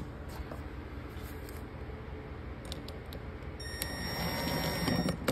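Small electric screwdriver running for about a second and a half near the end with a steady whine, driving a screw through the jig's stop block into the handle's threaded post. A few light handling clicks come before it.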